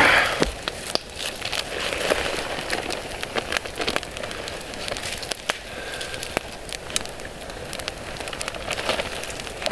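Campfire crackling: irregular sharp pops and snaps over a steady hiss.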